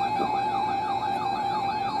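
Electronic alert siren: a fast tone sweeping up and down about three times a second over a steady high tone, sounding as a weather alert for a newly issued tornado watch.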